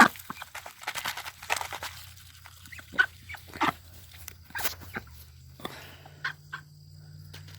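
Ducks and chickens feeding on scattered corn: scattered short pecking clicks and a few brief calls.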